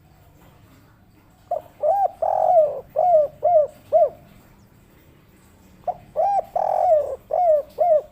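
Spotted dove (tekukur) cooing twice. Each phrase is a short note, a second coo and a longer rolling coo, followed by three short 'kuk' notes: the 'kuk 3' song type.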